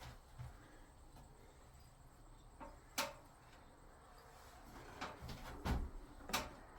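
A few light knocks and clicks over a quiet background hum, one about halfway through and a small cluster near the end.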